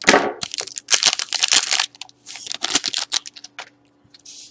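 Foil wrapper of a hockey trading-card pack being torn open and crinkled, in several bursts of crackling rustle with short pauses between.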